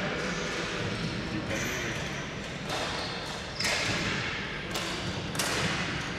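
Ball hockey play in a large echoing arena: several sharp knocks of sticks striking the ball and the hard floor, about a second apart, each ringing on in the hall.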